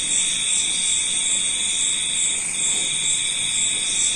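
A steady high-pitched tone that breaks off briefly about two and a half seconds in, with a faint rapid pulsing above it.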